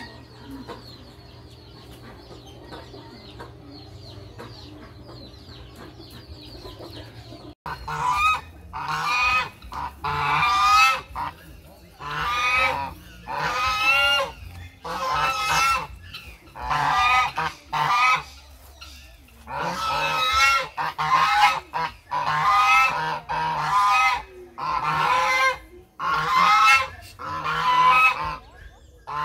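Two domestic geese honking over and over, loud pitched calls coming about once or twice a second. They start abruptly about a quarter of the way in; before that there is only a faint steady background.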